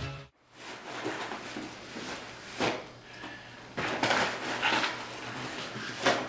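Cardboard cereal box rustling and crinkling in irregular bursts as it is clumsily handled with boxing gloves, louder about halfway through and once near the end.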